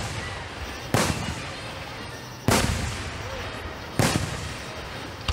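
Aerial fireworks shells bursting: a sharp bang about every second and a half, three in a row with a fourth right at the end, each trailing off in an echoing rumble.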